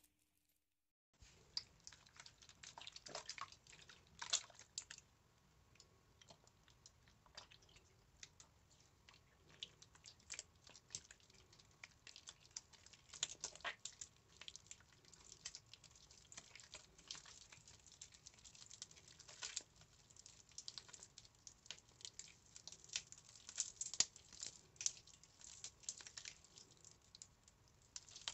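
Hands squeezing and crushing water-soaked soap, giving an irregular run of soft wet crackles and squelches. It starts after a short silent gap about a second in.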